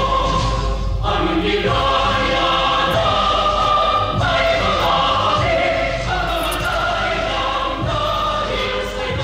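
Background music: a choir singing long held chords that shift every second or so.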